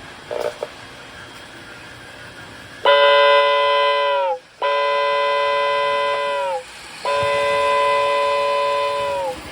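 Toy train whistle blown three times in long blasts, a chord of several steady notes that sags in pitch each time it cuts off, over a steady hiss.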